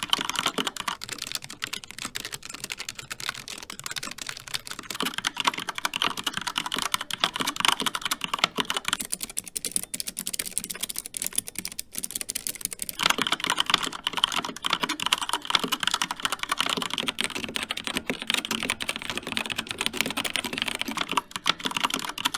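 Steady fast typing on a series of mechanical keyboards in turn, the click tone changing as each board takes over. The boards are a Logitech G915 with low-profile GL Linear Red switches, a Keychron K3 with optical blue clicky switches, and an Xtrfy K4 with Kailh Red linear switches.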